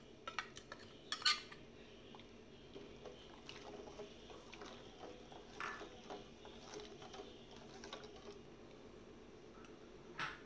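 Steel spoon clinking and scraping against a glass and a stainless steel pot while a thick milk-and-jaggery mixture is stirred. There are a few sharp clinks in the first second and a half, the loudest about a second in, then lighter scattered taps and scrapes over a steady low hum.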